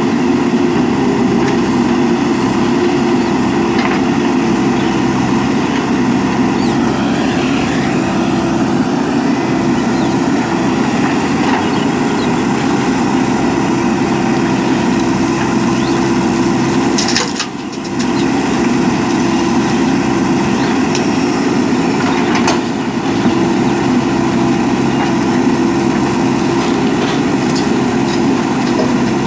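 Diesel engine of a JCB 3DX backhoe loader running steadily and loudly, briefly dropping off about seventeen seconds in.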